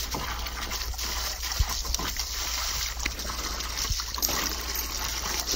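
Doberman splashing in a shallow plastic kiddie pool, snapping at a hose's water stream: the steady spray of the hose water with irregular splashes from its mouth and legs in the water, one harder splash about a second and a half in.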